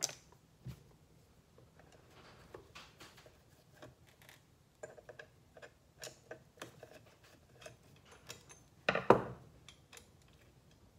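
Small clicks and ticks of hand-work with a Phillips screwdriver on a Onewheel XR's frame rail, taking out screws and plastic battery-wire clips. A louder knock about nine seconds in.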